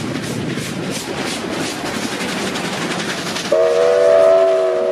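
Steam locomotive R761 working hard, its exhaust beating in rapid chuffs about four a second. About three and a half seconds in, a loud whistle sounds a sustained chord of several notes.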